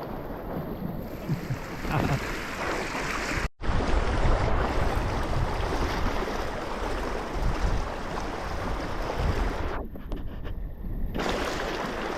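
Creek water rushing steadily, with wind buffeting the microphone as a low rumble. The sound drops out for an instant a few seconds in.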